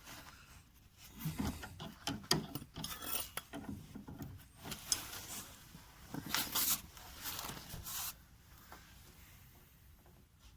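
Ratchet wrench with a 13 mm socket clicking and rasping in short, irregular spells as the anti-roll bar mounting bolts are tightened. It dies down after about eight seconds.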